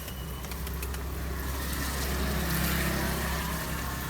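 A motor vehicle passing close by: a low engine hum and road noise that swell to a peak about two and a half seconds in, then fade.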